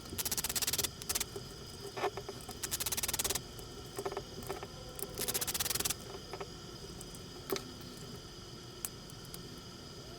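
Disassembly of a plastic Tamiya TA-01 RC car chassis to remove a cover: three short bursts of rapid clicking, each under a second, with a few single light clicks and taps of small parts in between.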